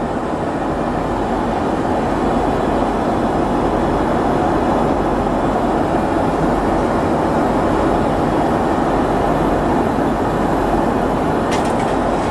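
Steady, even rushing noise of an airliner in flight, heard from inside its lavatory.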